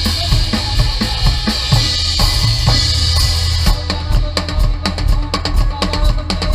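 Drum kit playing a fast, busy beat within band music, kick and snare hits over a steady bass line. A bright cymbal wash thins out a little past halfway, leaving crisper, separate hits.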